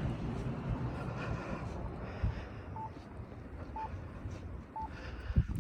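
Short electronic beeps at one steady pitch, repeating about once a second from about halfway in, over low wind noise on the microphone.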